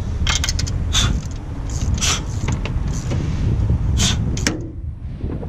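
Ratchet and socket wrench working on bolts in a car's engine bay: sharp metallic clicks and clinks a few times, a cluster just after the start and single ones about one, two and four seconds in, over a steady low rumble.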